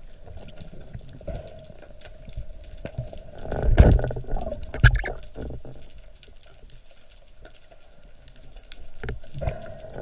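Water gurgling and bubbling close to the microphone, with two louder splashing bursts about four and five seconds in.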